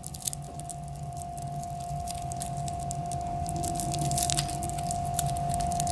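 Clear protective plastic film being peeled and pulled off a stainless-steel watch bracelet, crinkling and crackling in many quick, irregular little clicks. A steady tone runs underneath.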